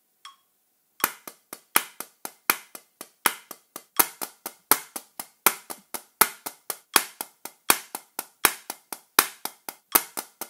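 Wooden drumsticks striking a drum practice pad, starting about a second in: steady triplets with a loud accent on the first of every three notes, about four accents every three seconds.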